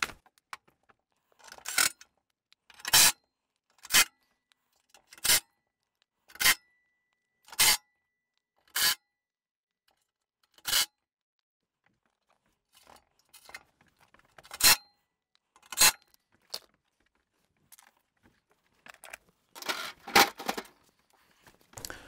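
Cordless drill-driver driving screws into a Suburban RV furnace's sheet-metal casing during reassembly, in a series of short bursts about a second apart. There is a pause midway and a quicker cluster of bursts near the end.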